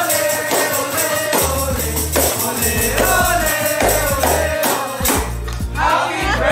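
Upbeat music with singing over a steady beat and a bass line that comes in about a second and a half in.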